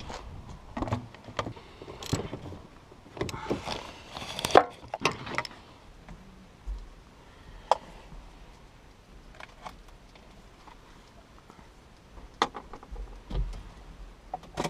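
Metal hand tools clinking and clattering, busiest in the first few seconds, then a few scattered clicks and knocks.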